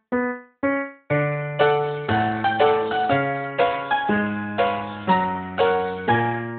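Silent-movie-style piano music: three short single notes, then from about a second in chords over a bass line, struck about twice a second.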